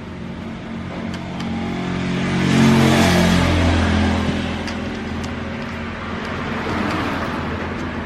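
A motor vehicle's engine swells to a peak about three seconds in and then fades, its pitch dropping as it goes past. Faint clicks sound now and then.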